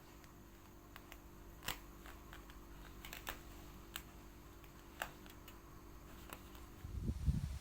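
Faint, irregular sharp clicks, a few seconds apart, over a steady low hum, with a short low rumble near the end.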